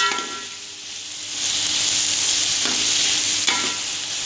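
Diced chicken and vegetables frying in oil in a metal pot, sizzling steadily, while a metal spatula scrapes and clinks against the pot as they are stirred. The sizzle grows louder about a second and a half in, and there are a few separate scrapes, the first with a short metallic ring.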